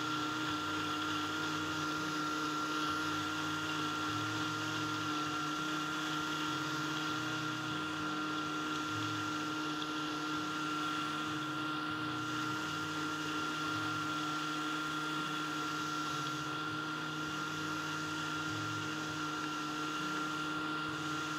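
Countertop blender running steadily, blending soaked cashews, water and seasonings into a smooth cream. Its motor gives an even whine that holds one pitch throughout.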